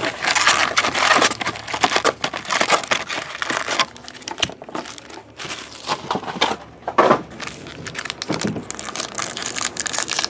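Foil-wrapped trading card packs crinkling and rustling as they are handled and stacked, in irregular bursts of crackle, busiest in the first few seconds.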